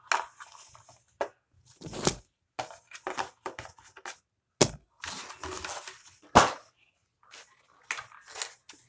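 Clear plastic packaging of a Bakugan battle pack being handled: crinkling and cracking plastic, with several sharp clacks as pieces are set down, the loudest about six seconds in.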